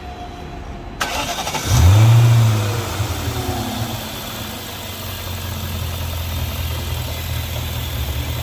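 A 1998 BMW V8 engine is cranked by the starter about a second in and catches with a brief rev flare. It then settles into a steady idle.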